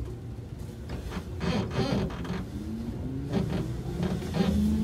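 Hankyu 7000 series electric train, field-chopper controlled, pulling away and gathering speed: its wheels knock over rail joints and points several times, while the traction motor whine comes in about halfway through and climbs steadily in pitch.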